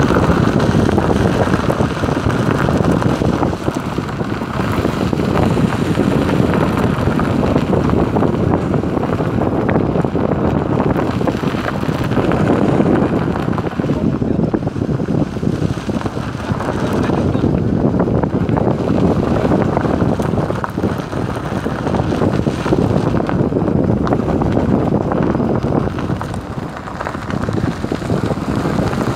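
Wind buffeting a microphone held out of the window of a moving small car, over the rumble of the Maruti Alto and its tyres on a dirt forest track. The noise is steady and loud, swelling and easing a little as the car moves.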